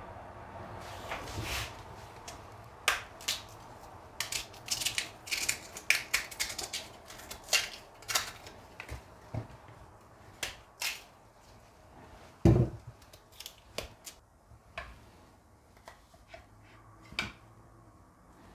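Knife peeling cassava roots by hand: irregular scraping and cutting clicks as the peel is pried off, with one heavy thump about two-thirds of the way through.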